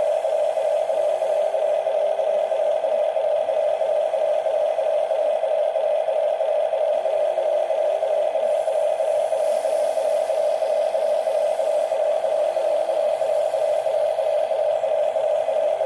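Small electric motors and gearboxes of a radio-controlled toy excavator, giving a steady high whine, with a lower whine that keeps starting, rising and falling as other moves are worked.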